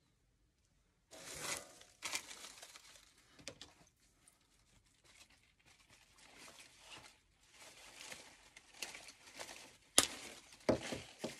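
Rustling and crinkling of artificial flowers and foliage being handled, starting about a second in, with a sharp click near the end that is the loudest sound.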